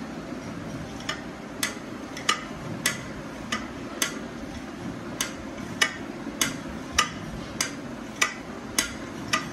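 Sharp, evenly spaced knocks, about one every 0.6 seconds, starting about a second in, over a steady low hum.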